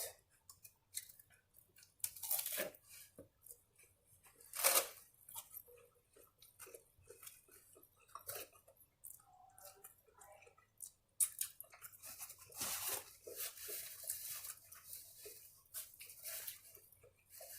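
Chewing and crunching a taco: irregular short crunches and mouth clicks, a few of them louder.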